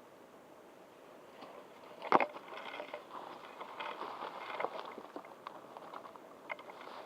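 A sharp snap or knock about two seconds in, then rustling and crackling as someone moves through brush, with small clicks from gear or twigs.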